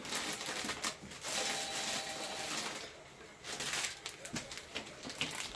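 Kitchen work at the stove and sink: stretches of hissing noise, broken by several sharp clicks and knocks.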